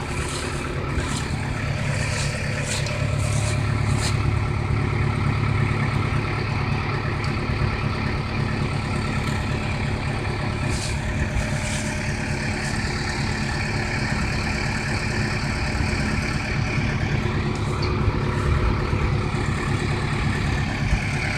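Toyota Tundra pickup's engine running steadily as the truck is positioned for the pull, with a few light clicks in the first few seconds.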